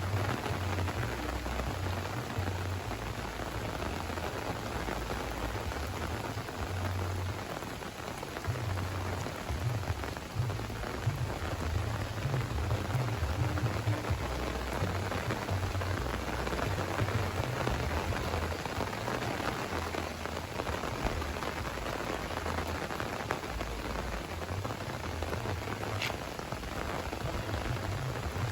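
Steady heavy rain pouring down, an even hiss of drops, with an uneven low rumble underneath.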